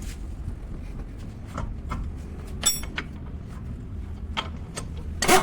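Metal hand tools clinking and knocking against car parts in scattered, irregular strikes. One clink about halfway through rings on briefly, and a louder knock comes near the end, over a steady low hum.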